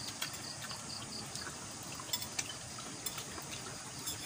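Night insects trilling steadily in the background, with scattered light clicks and clinks of a spoon and dishes.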